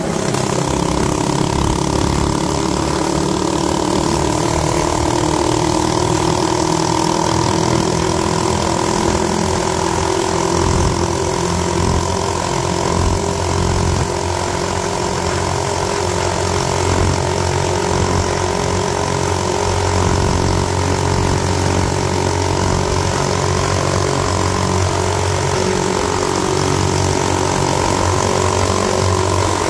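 Hopped-up Predator 212cc single-cylinder four-stroke minibike engine (hemi head, flat-top piston, CL3 cam, Mikuni VM22 carb) running steadily under way, its pitch creeping slowly upward. Wind rushes over the microphone.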